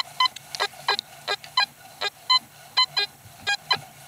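Fisher F75 metal detector giving a dozen or so short, irregular beeps as its coil is swept quickly over the ground.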